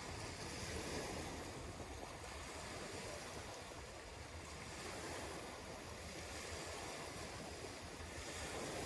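Small waves washing onto a sandy beach, a steady rushing of surf with wind on the microphone.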